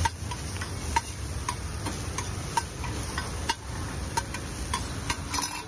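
Steel spatula clicking and scraping on a flat griddle as chopped onions and vegetables are stirred: a string of short, sharp metallic taps with a slight ring, roughly two to three a second.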